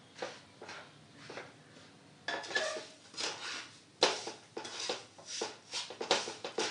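Wooden spatula scraping and stirring roasted gram flour and powdered sugar in a nonstick frying pan: a run of repeated strokes, about two a second, softer at first and louder from about two seconds in.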